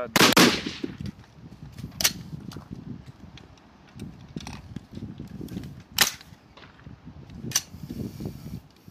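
Rifle shots on a high-power match firing line: a loud report just after the start, then sharp single shots about 2, 6 and 7.5 seconds in.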